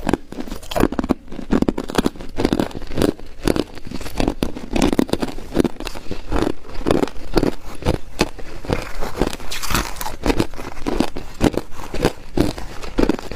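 Ice being bitten and chewed in the mouth, close up: a steady run of hard crunches, about two or three a second.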